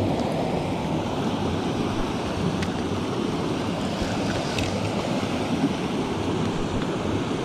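Steady rushing of a shallow stream riffle pouring over a small cascade, with a couple of faint clicks.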